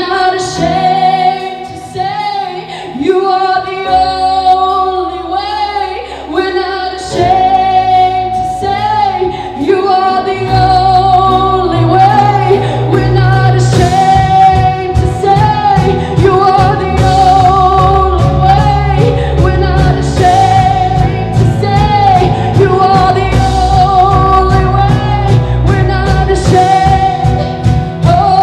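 A live worship band plays a song with a lead vocal. The low end comes in about ten seconds in, and the band fills out a few seconds later.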